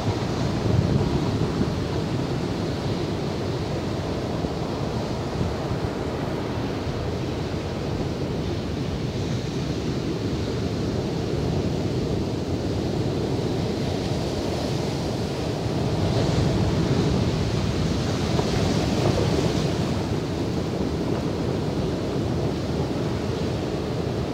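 Heavy surf breaking on the shore in a continuous rushing wash, with wind rumbling on the microphone. The surf swells louder about two-thirds of the way through.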